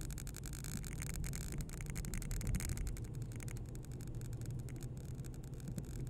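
Car driving along a town street, its engine and tyres making a steady low rumble as heard from inside the car.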